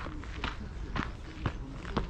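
Footsteps of a person walking at a steady pace, about two steps a second.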